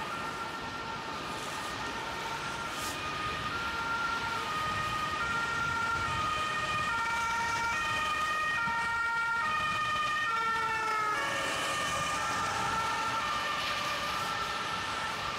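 Two-tone emergency-vehicle siren alternating between a high and a low note, both notes dropping in pitch about two-thirds of the way through as the vehicle goes by. Steady tyre and wind noise runs underneath.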